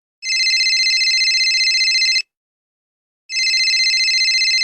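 Old-style telephone bell ringing: two rings of about two seconds each, about a second apart, each a fast, even, rattling trill of high bell tones.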